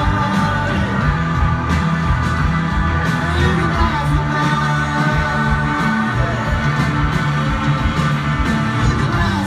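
Live rock band playing loudly, heard from the audience: electric guitars, bass, drums and a singing voice.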